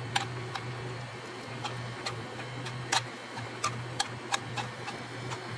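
A spoon clicking and scraping against a speckled nonstick skillet and a glass baking dish while meat filling is scooped and spread into zucchini halves: light, irregular clicks about every half second, over a steady low hum.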